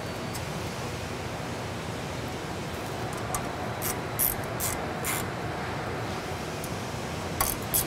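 Light clicks and clinks of a hand tool against a pump's metal coupling guard and its fasteners as the guard is secured, bunched about three to five seconds in and again near the end, over a steady hiss.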